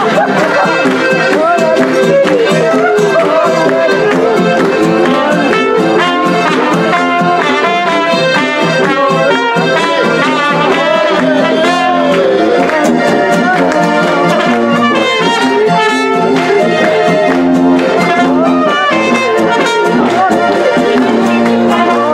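Live trumpet playing a folk-style melody over strummed acoustic guitar, with the audience clapping along.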